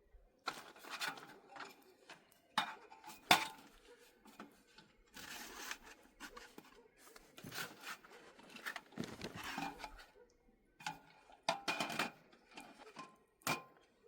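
Camping gear being handled while a small camp table is set up: irregular knocks, clinks and scraping rustles, with the sharpest knock about three seconds in.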